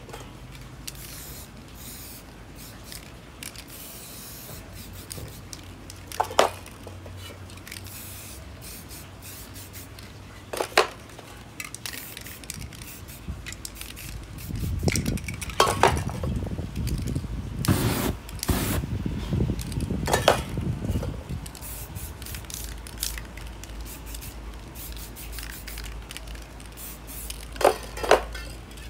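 Aerosol spray paint cans hissing in many short bursts onto a canvas. A few loud, sharp metallic knocks of the cans being handled stand out over the spray.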